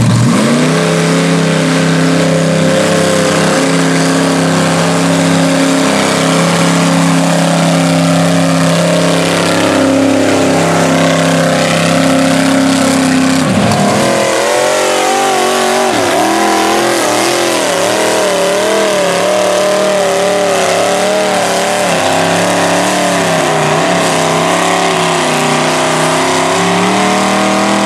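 Engines of lifted mud trucks on tractor tires running hard through a mud pit. The revs are held high and fairly steady for about the first half, then rise and fall sharply over and over for the rest.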